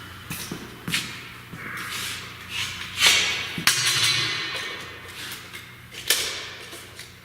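Several sharp knocks and clunks with a scraping, sliding sound about three seconds in that fades over the next two seconds, from steel stock and tools being handled during measuring.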